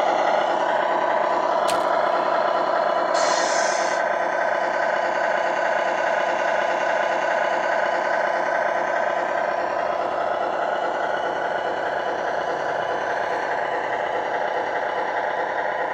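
Tamiya Grand Hauler's multi-function sound unit playing a simulated big-rig diesel engine idling steadily through the model's speaker. About three seconds in comes a short air-brake hiss.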